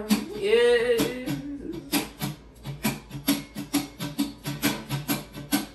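Acoustic guitar strummed steadily at about four strokes a second. A sung note bends and trails off over it in the first second or so.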